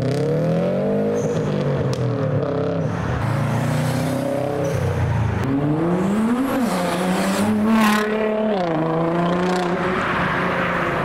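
Modified cars pulling out one after another, a Subaru WRX STI first, their engines revving up and dropping back in pitch through gear changes. There is a brief, louder hissy burst about eight seconds in.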